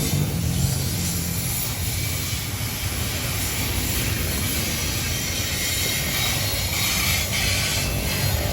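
Intermodal freight train passing, its wagons rolling by with a steady low rumble.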